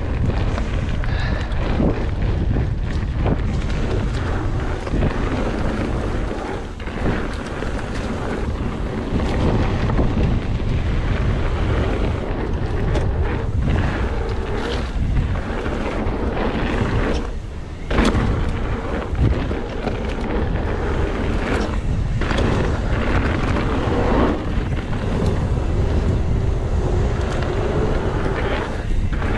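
Wind buffeting the microphone of a camera on a moving mountain bike, over the rumble of knobby tyres on a dirt trail and the clatter of the Specialized Stumpjumper jolting over bumps.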